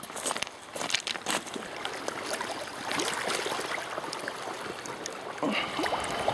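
Footsteps crunching on river shingle, then shallow river water sloshing and splashing as a landing net scoops a hooked trout near the end.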